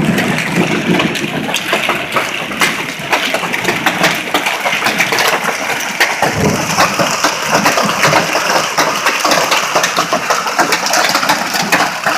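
Hail falling hard: a dense, constant clatter of many small impacts over a steady rushing hiss.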